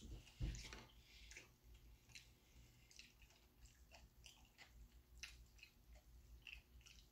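Faint, quiet mouth sounds of someone chewing: scattered soft clicks and smacks, with a low soft thump about half a second in.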